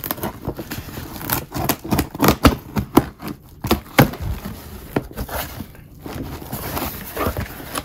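A blade cutting through a taped cardboard box, with irregular scraping, tearing and crackling of cardboard and packing tape as a panel is cut free and lifted.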